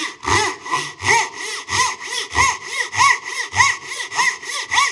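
Japanese dozuki pull saw with fine crosscut teeth rip-sawing along the grain of 3/4-inch white oak, in steady back-and-forth strokes about one and a half a second, each a scratching rasp that rises and falls. Crosscut teeth cut poorly along the grain, and it doesn't sound like it's cutting really good.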